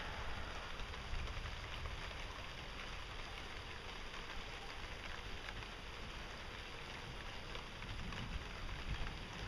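Thunderstorm rain falling steadily while strong wind gusts, with the wind rumbling on the microphone.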